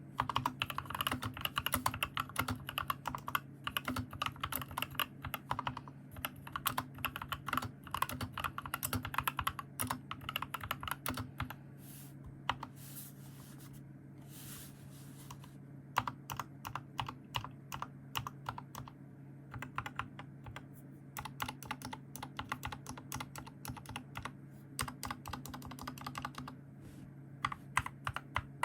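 Typing on an Epomaker SK61s 60% mechanical keyboard fitted with lubed Gateron Clear optical switches: a fast run of key clacks that thins out for a few seconds around the middle, then picks up again, over a steady low hum.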